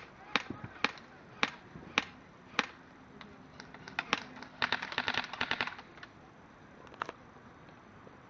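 Airsoft replica guns firing: sharp snapping single shots about half a second apart, then a rapid full-auto burst of about a second beginning roughly halfway through, and one last shot a little later.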